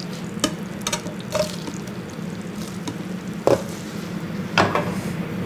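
Butter sizzling in a frying pan on a gas hob, with several sharp knocks of pan and utensils. A steady low hum runs underneath.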